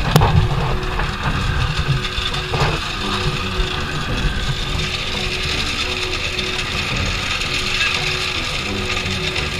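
Portable drum concrete mixer running steadily, its engine and turning drum making a continuous mechanical rumble and rattle, with a sharp knock right at the start.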